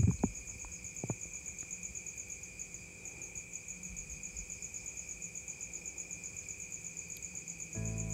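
Crickets chirping in a steady, fast-pulsing trill, with a light click about a second in; background music starts near the end.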